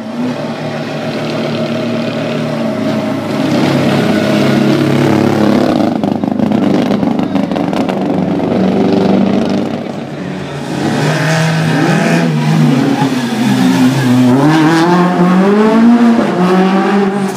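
Small racing hatchbacks' petrol engines running hard as the cars come through a tight street slalom course one after another. The pitch rises and falls repeatedly in the second half as the drivers brake, shift and accelerate through the hairpin.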